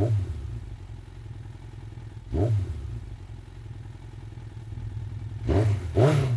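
Motorcycle engine idling with a low pulsing rumble, blipped on the throttle four times: once at the start, once about two and a half seconds in, and twice close together near the end, each rev rising and falling in pitch.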